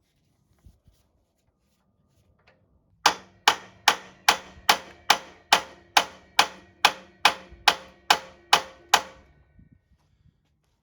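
Hammer striking metal: about fifteen sharp ringing blows at a steady pace, starting about three seconds in, working the motorcycle's steering-stem spanner nut loose without the special tool meant for it.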